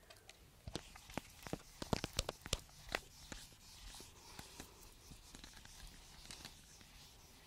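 Whiteboard eraser rubbing and scrubbing across a whiteboard, wiping off a marker drawing. A run of sharp taps and knocks against the board fills the first three seconds, followed by quieter scrubbing.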